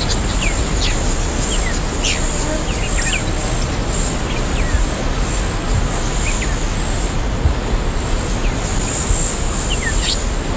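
Savanna ambience: a steady high insect buzz with short, falling bird chirps scattered throughout, over a steady low rumble.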